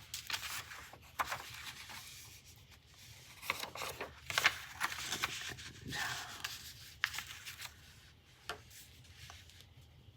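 Fabric and paper being handled and rubbed on a work table: scattered rustles, scratches and light clicks, with a short squeak about six seconds in.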